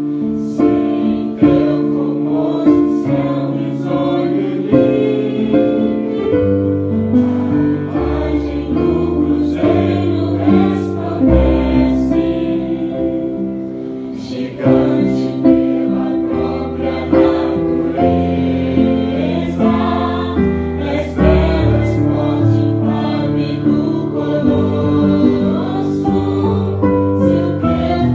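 An orchestra performing: sustained, shifting chords with short sharp percussive accents throughout, sounding choir-like.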